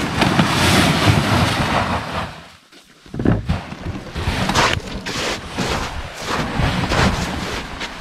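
Wind buffeting the microphone over the rough scraping and crunching of a loaded sled being hauled and braked through snow. The sound dips out briefly about two and a half seconds in.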